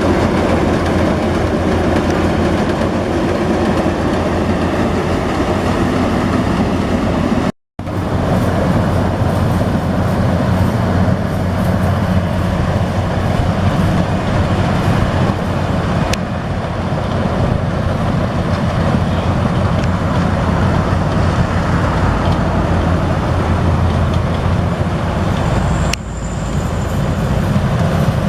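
Yanmar AW82V rice combine harvester running steadily under load, its diesel engine and machinery making a loud continuous mechanical noise, broken by a split-second gap about seven and a half seconds in.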